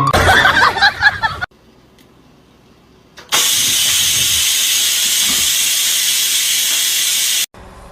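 A loud, steady hiss lasting about four seconds, which starts and stops abruptly.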